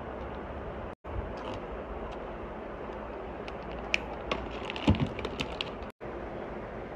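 Plastic zip-lock pouches and makeup packaging being handled: a cluster of crinkles and clicks with one soft knock, about four to five and a half seconds in, over a steady background noise. The noise drops out for an instant twice.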